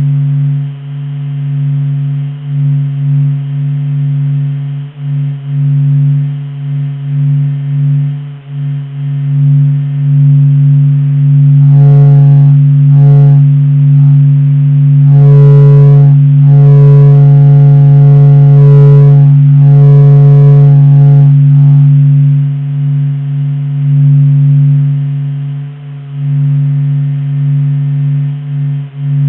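The 'sound of the Sun': solar surface oscillations measured by SOHO's Dopplergraph and converted into audible sound. It is a steady, low electronic-sounding drone with a wavering, pulsing level. From about twelve to twenty-one seconds in, a higher wavering tone with overtones joins the drone.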